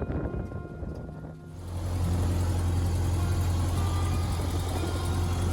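A vintage car engine running steadily, a deep even hum with a steady hiss over it, coming in about a second and a half in.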